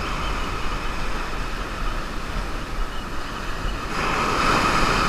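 Ocean surf washing up a sandy beach, a steady rush mixed with wind on the microphone; a wave's wash swells louder about four seconds in.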